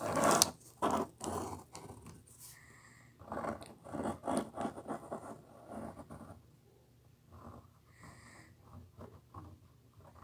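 Pencil drawing on paper close to the microphone: a run of irregular scratching strokes with short pauses, fainter in the last few seconds.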